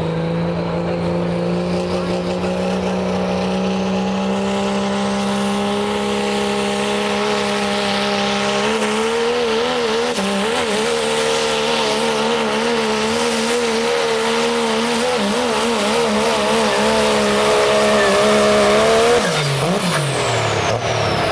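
Diesel Dodge Ram 4x4 pickup engine at full throttle pulling a sled: the revs climb steadily over the first several seconds, then hold high with the pitch wavering rapidly. About nineteen seconds in the revs fall sharply as the throttle comes off at the end of the pull.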